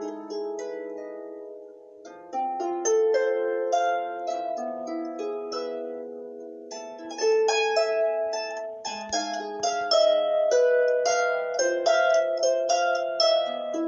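Solo harp playing a melody of plucked notes that ring on. The notes die away over the first couple of seconds, start again, and grow louder and busier about seven seconds in.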